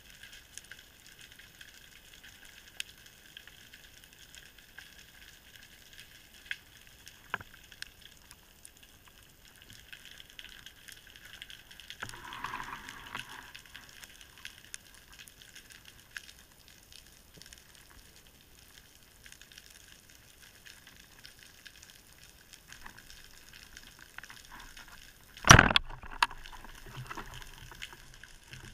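Band-powered speargun fired underwater: one sudden, loud crack about 25 seconds in, over a steady faint underwater crackle with scattered small clicks.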